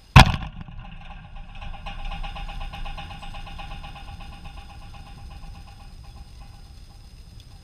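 A baseball hitting the backstop fence with a loud sharp crack just after the bat swing, then the fence buzzing and rattling, fading away over about six seconds.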